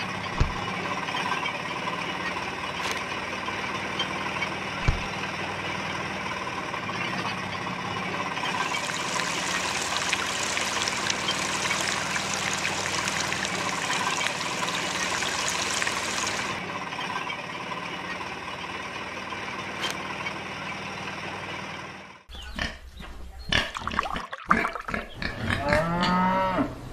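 Small electric motor of a miniature model juicer running steadily, with a splashing hiss from about 8 to 16 seconds in as juice pours into small metal buckets. After about 22 seconds the motor stops and a few animal calls and grunts follow.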